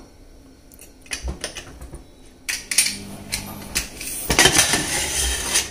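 A pressure cooker being opened once its steam has died down: a few light metal clinks and knocks of the lid against the pot, then denser metal rattling and scraping in the last second and a half.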